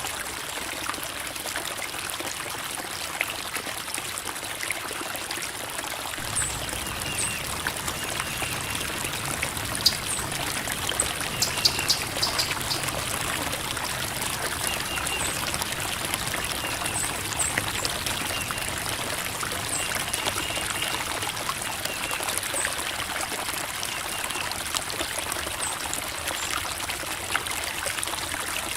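Creek water flowing and trickling over rocks, a steady rush with a few sharper splashes about ten to twelve seconds in.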